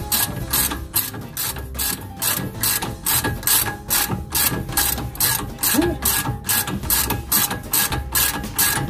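Socket ratchet clicking steadily, about four clicks a second, as it is swung back and forth to turn a nut on the front suspension of a Mazda Bongo Friendee.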